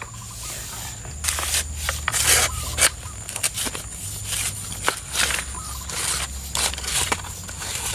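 Irregular rustling and scraping swishes, about one or two a second, over a steady high thin tone and an intermittent low rumble.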